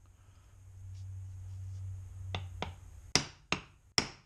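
Ball-peen hammer striking a metal driver to seat a new double lip seal into an NP231 transfer case housing: five sharp taps in the second half, irregularly spaced.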